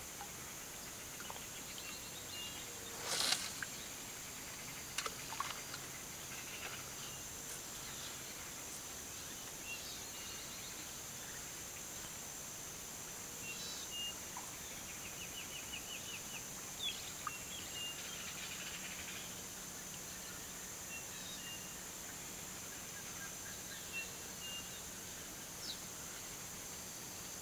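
Outdoor river ambience: scattered short bird chirps over a steady high-pitched hiss, with one brief louder rush of noise about three seconds in and a few faint clicks.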